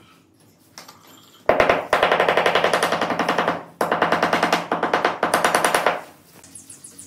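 Rapid hand tapping on large ceramic floor tiles with a hammer-type tool to bed them into the mortar: two long runs of fast, even strikes, about eight a second, with a short break near the middle.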